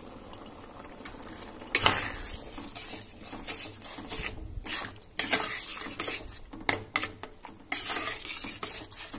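Thick, simmering khichuri being stirred in a pan. After a quieter stretch at the start, a cooking utensil scrapes and knocks against the pan in irregular strokes from about two seconds in.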